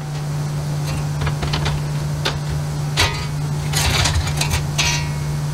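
Thin sheet-steel cut-out and scrap pieces scraping and clinking as they are handled, with several short, sharp metal knocks, over a steady low hum.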